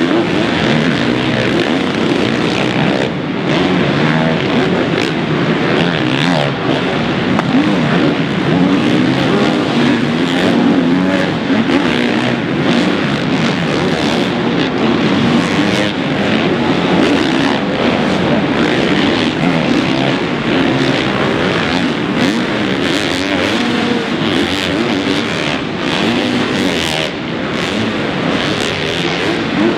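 Several motocross bikes' engines revving hard and backing off, overlapping one another, their pitch rising and falling continuously as riders accelerate and brake through the track.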